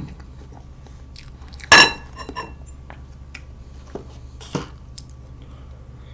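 Close-up eating sounds of a person chewing cake, with light clicks of a metal fork against a small plate. About two seconds in, one louder, sharp clink rings briefly.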